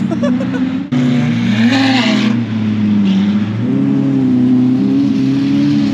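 Car engine running at low speed with a slow rise and fall in pitch as the throttle is worked, cutting out briefly about a second in before picking up again with a quick rise in revs.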